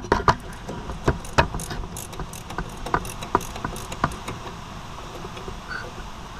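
Irregular metallic clicks and clinks of small steel drum brake parts being handled at the backing plate, a quick scatter of them in the first four seconds, then they die away.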